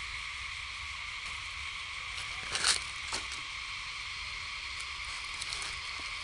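Steady high drone of an insect chorus, with a short loud crackle about two and a half seconds in and a fainter one just after.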